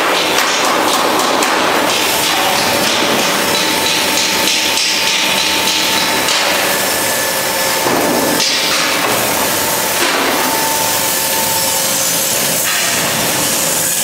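Stainless steel drum nut roaster running, with nuts rattling and tumbling inside its turning drum: a steady, dense clatter with a faint machine hum beneath.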